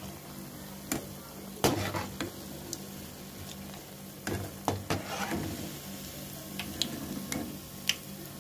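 Oil sizzling steadily as sweet wheat-flour bondas deep-fry, with a steel slotted spoon knocking and scraping against the pan several times as the bondas are stirred and lifted out.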